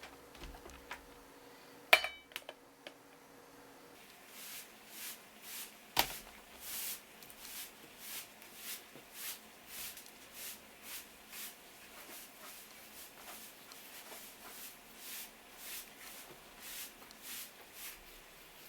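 Kitchen food-preparation sounds: two sharp knocks about two and six seconds in, then a steady run of short, hissy strokes about two a second, like a knife working blowfish on a cutting board.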